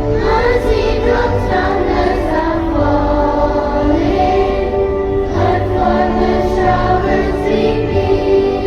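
A choir singing a hymn with instrumental accompaniment.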